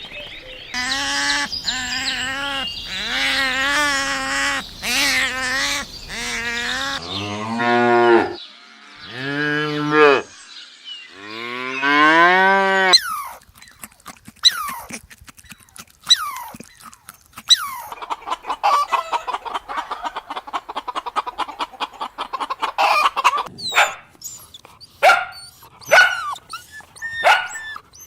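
A run of farm-animal calls. First a long wavering bleat, then a cow mooing three times, each moo long and falling in pitch. After that comes a scatter of sharp clicks and short calls.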